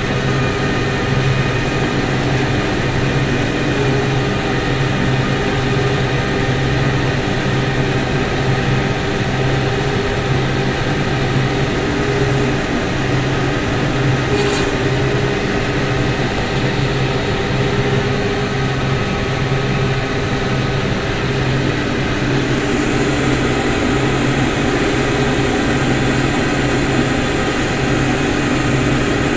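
A cotton picker running steadily while harvesting, a continuous engine and machinery drone with a low pulsing hum. A brief sharp tick comes about halfway through, and a high hiss joins in about two-thirds of the way through.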